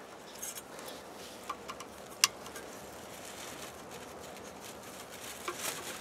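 Small clicks and scrapes of a screwdriver working on a water pump's pressure switch, the sharpest click about two seconds in, over a faint steady hiss of light wind.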